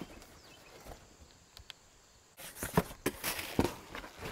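Cardboard box being handled and opened: a couple of faint clicks, then from about halfway a string of scrapes, rustles and knocks as the box is laid down and its flaps are pulled open.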